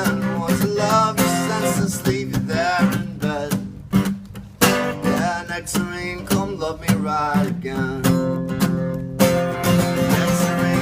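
Live acoustic guitar strumming, with a man's voice singing over parts of it. The playing drops briefly about four seconds in, then picks up again.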